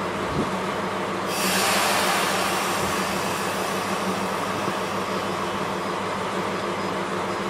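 A JNR Class DE10 diesel-hydraulic locomotive idling with a steady low hum. About a second in, a loud hiss of compressed air starts suddenly and slowly fades away.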